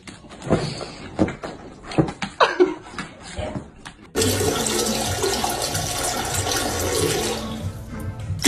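A few soft knocks and a short vocal sound, then, about four seconds in, a toilet flushing: a sudden, loud rush of water that keeps running.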